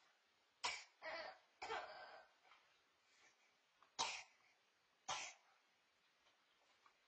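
A person coughing: a quick run of three coughs, then two single coughs a second or so apart.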